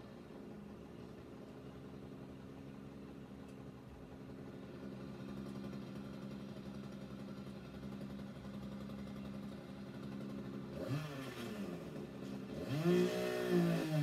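Chainsaw cutting down a star pine, heard from inside the house: a steady engine drone, then revving up and down about eleven seconds in and again near the end.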